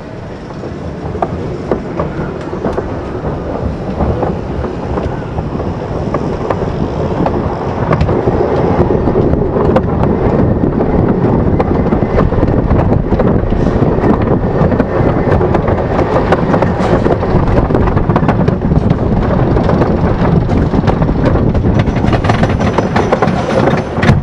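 Wooden roller coaster train rolling along its wooden track, its wheels rumbling and clattering. The sound grows louder over the first several seconds, then holds steady.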